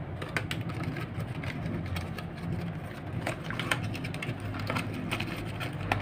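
Small cardboard box handled and opened by hand: a quick run of sharp taps, scrapes and crinkling of the card, over a steady low hum.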